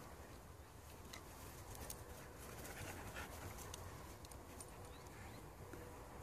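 Two Australian Shepherds playing tug-of-war with a stick: faint dog sounds with scattered light ticks.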